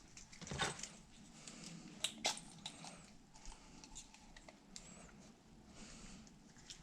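Faint handling sounds of stripped wire ends being twisted together by hand: light rustling with a few small clicks, the sharpest about two seconds in.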